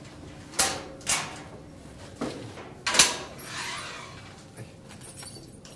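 Knocks and metallic clanks from a stainless-steel animal cage, about five of them, the loudest about three seconds in with a ringing tail, as the cage door and its fittings are handled and rattled.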